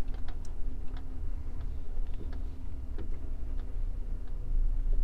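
Truck diesel engine running low in the cab, with a regular ticking about one and a half times a second from the turn-signal relay.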